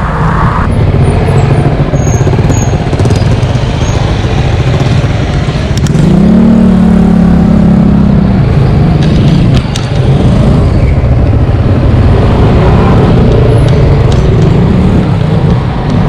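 Steady low rumble of wind and road noise from riding an e-bike through street traffic. About six seconds in, a motorcycle engine runs close by for a couple of seconds.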